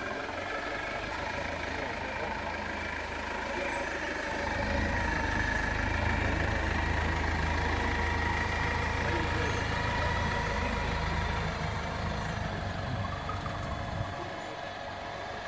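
Clark forklift's engine running as it drives, a low steady drone that grows louder about four seconds in as the truck comes close and drops away about fourteen seconds in as it moves off.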